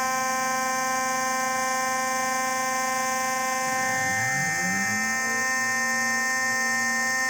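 Home-built CNC milling machine running: a steady whine from the spindle, with a lower motor hum that glides up and then down in pitch about four seconds in as an axis moves.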